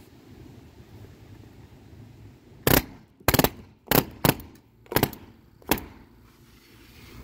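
Banks pneumatic palm nailer hammering a nail into wood door trim. It fires in about six short, loud bursts of rapid blows over roughly three seconds, each burst lasting a fraction of a second.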